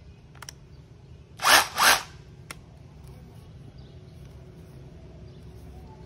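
Makita DHR202 18V cordless rotary hammer run in two short bursts about a second and a half in, the trigger squeezed and released twice in quick succession, with a couple of light clicks around them.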